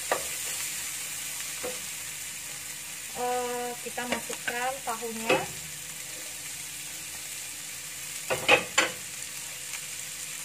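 Vegetable stir-fry sizzling in a nonstick frying pan while a wooden spatula stirs and scrapes, as cubed tofu is tipped in from a plate. Two sharp knocks about eight seconds in are the loudest sounds.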